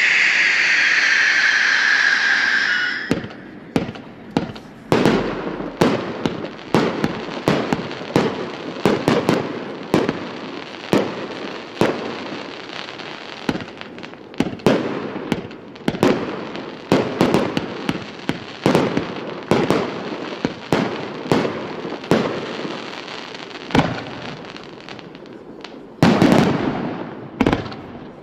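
A 418-shot fireworks compound cake firing. It opens with a loud hiss from a rising spark effect for about three seconds, then keeps up a string of sharp launch thumps and shell bursts at about two a second, with a dense, loud salvo near the end.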